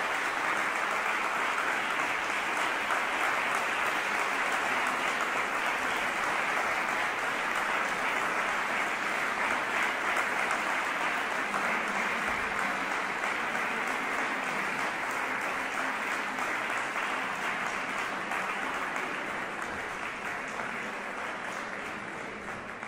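Concert audience applauding steadily, tapering off near the end.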